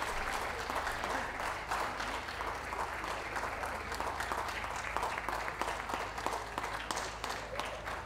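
Ringside crowd applauding a dog as it is gaited around the show ring, steady clapping that dies away near the end.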